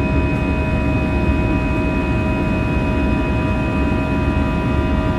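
Airbus A320's CFM56-5B turbofan engines climbing out after takeoff, heard from inside the cabin: a steady, loud roar with several steady whining tones over it.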